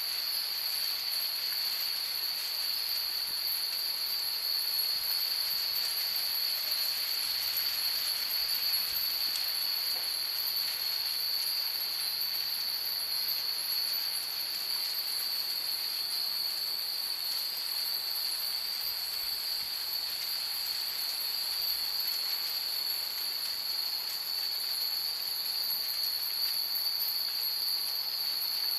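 Many hanging furin wind chimes tinkling faintly, over a steady high-pitched hiss that is the loudest thing heard.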